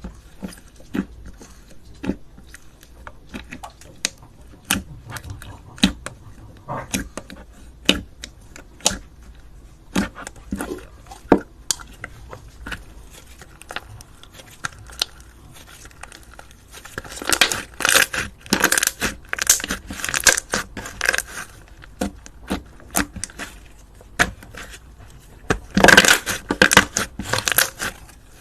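Crunchy slime being squeezed and crushed by hand: scattered sharp crackles and pops, with two denser, louder runs of crunching, one a little past the middle and one near the end.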